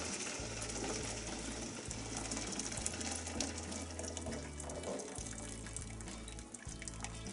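Hot water from boiled potatoes pouring out of a stainless steel stockpot, past its tilted lid, and splashing into a steel bowl in the sink. The pour is drained potato cooking water. It splashes steadily and grows gradually quieter as the stream thins toward the end.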